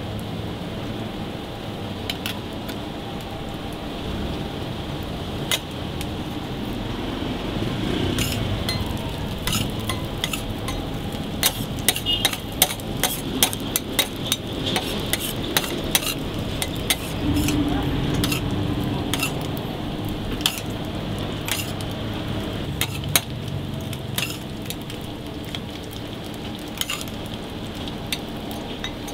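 Food sizzling on a flat-top griddle while a metal spatula scrapes and clacks against the steel plate, with a run of sharp taps in the middle stretch as bacon bits and patties are turned and moved.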